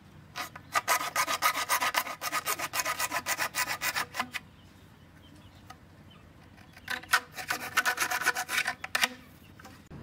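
A bare hacksaw blade, held in the hand, sawing into blue PVC pipe in quick back-and-forth rasping strokes. Two runs of sawing, about four seconds and then two and a half seconds, with a short pause between.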